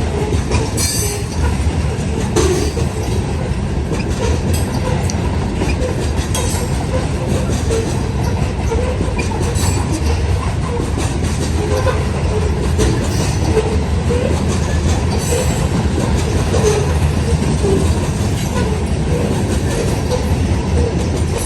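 Cars of a loaded freight train rolling past: a steady rumble of steel wheels on rail, with irregular clacks as the wheels cross the rail joints and the diamond, and occasional faint wheel squeals.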